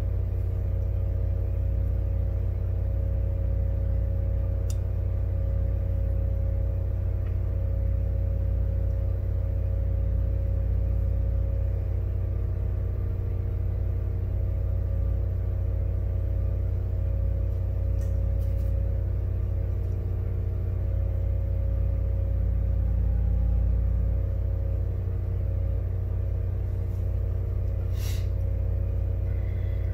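Steady electric hum from the soldering bench's powered equipment, low and constant with evenly spaced overtones, never changing. A few faint light clicks sit over it, the clearest near the end.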